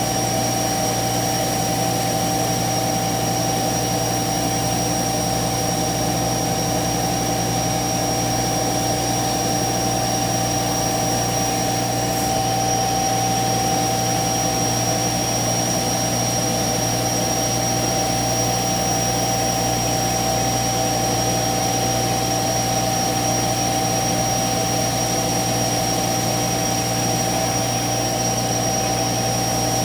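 CNC router running steadily: a constant high-pitched whine over an even rushing noise, with no change in pitch or level.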